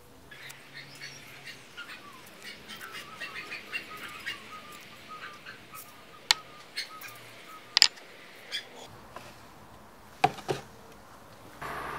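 Small birds chirping and twittering, with several sharp clicks and knocks. Near the end a metal pot clunks down on a glass induction hob, and a steady hum starts just after.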